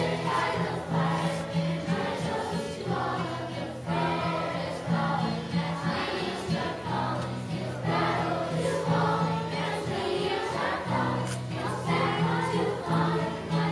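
Children's choir singing a song together, accompanied by a strummed acoustic guitar holding low notes underneath.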